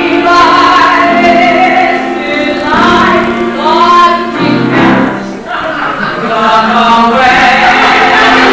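Cast of a stage musical singing a song together in chorus, with long held notes.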